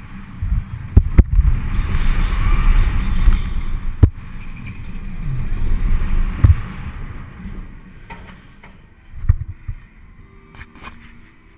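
Gerstlauer Infinity Coaster train running at speed on steel track, heard from on board: a rush of wind with a low track rumble and several sharp clunks. The noise dies down from about two-thirds of the way through as the train slows on the brake run, with a few clanks near the end.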